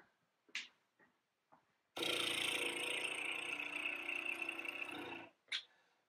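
A steady, machine-like whir, like a small engine, for toy play with a toy dump truck. It starts about two seconds in, holds even for about three seconds, and cuts off abruptly, with a couple of light clicks before and after.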